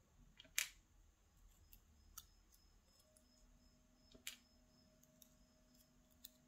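Small sharp clicks of steel tweezers and tiny lock pins being taken out of a tubular lock core and set down in a plastic pin tray. There are two sharper clicks, about half a second in and about four seconds in, with a few fainter ticks between.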